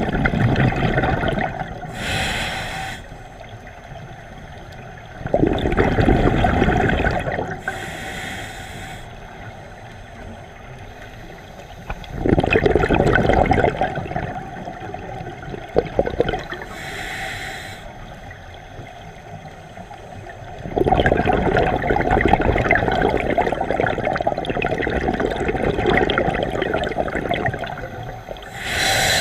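Scuba diver breathing through a demand regulator underwater: about four breaths, each a bubbling rush of exhaled air followed by a short hissing inhale through the regulator.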